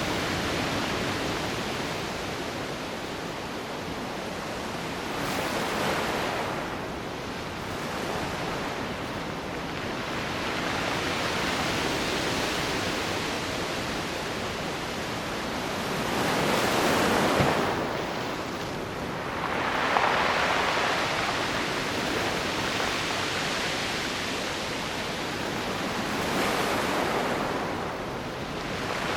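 Sea waves breaking and washing on a rocky shore, the surf swelling and ebbing in repeated surges, the strongest two about halfway through.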